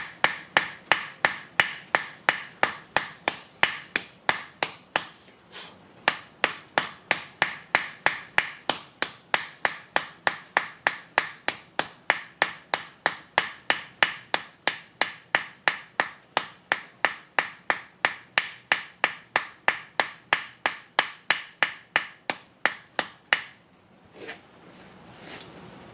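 Hand hammer forging a red-hot steel bar on a mild steel plate anvil. The blows come evenly at about three a second, and each rings out with a short metallic ring. There is a brief pause a few seconds in, and the hammering stops shortly before the end.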